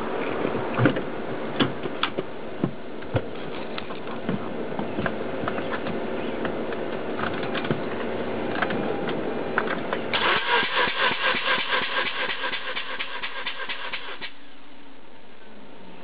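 A steady background noise with scattered clicks, then about ten seconds in the Mazda RX-8's 13B Renesis rotary engine is cranked on its starter for about four seconds, with an even rhythmic pulsing of about four beats a second. The cranking is for a compression test of the front rotor.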